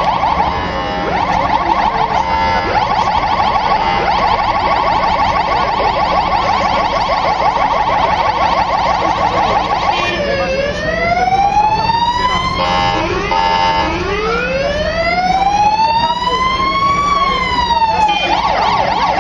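Emergency vehicle's electronic siren running through its tones: a fast warble for about ten seconds, then slow wails rising and falling, broken by a brief steady alternating two-tone passage, and back to the fast warble near the end.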